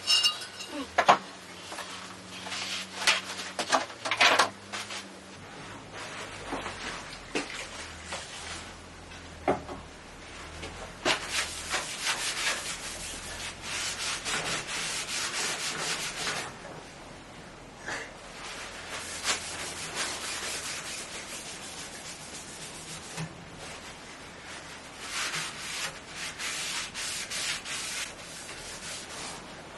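Paper rubbing back and forth over the cast iron table of a Record Power Sabre 350 bandsaw, scrubbing off gunk with methylated spirits, in several long stretches of scrubbing. A few sharp knocks come near the start.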